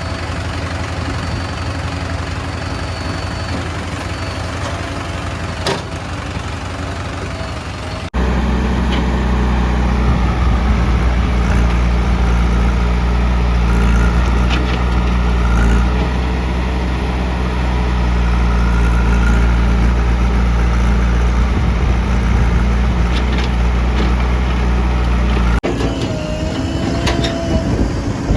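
Heavy diesel engines of earth-moving machinery running steadily, with a deep low hum. The sound changes abruptly about eight seconds in, becoming louder and heavier, and again near the end.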